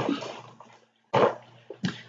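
A man's voice pausing between phrases: short, broken vocal sounds and breaths rather than full words.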